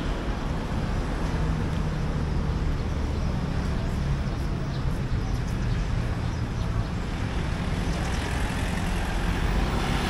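Steady rumble of road traffic on a city street.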